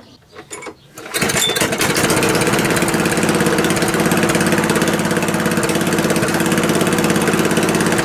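Murray walk-behind lawn mower engine starts abruptly about a second in and then runs steadily and loudly.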